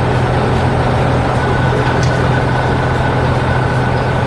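Heavy construction machine's engine running steadily: a continuous low rumble with a faint steady whine above it.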